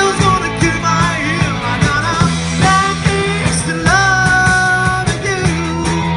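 Live rock band playing an upbeat rock song: singing over electric guitars and a steady drum beat, with a long held note about four seconds in.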